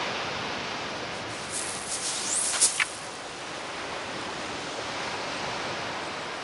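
Steady hiss of surf and wind on a shingle beach, with a short high zipping sound about two and a half seconds in.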